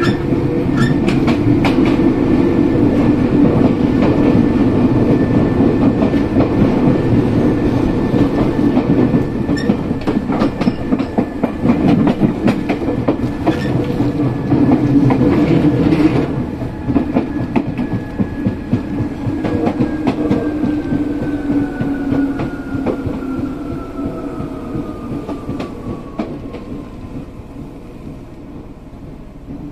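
In-car running sound of an Izu Kyuko 8000 series electric train with Hitachi-built traction motors: steady rumble with many sharp rail-joint clicks, over a thin motor whine. From about two-thirds of the way in the whine glides down in pitch and the running noise grows quieter as the train slows.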